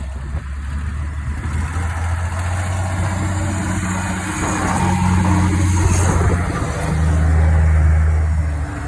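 Large vehicle engine running steadily under load, growing louder toward the middle and again near the end, with wind buffeting the microphone.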